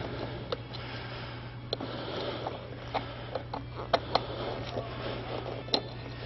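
Screwdriver backing out the screws that hold a mass airflow sensor to a plastic airbox: scattered light clicks and ticks of metal on plastic, over a steady low hum.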